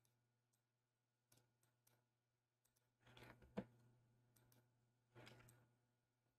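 Near silence with a faint low hum and a few faint computer-mouse clicks, the sharpest about three and a half seconds in.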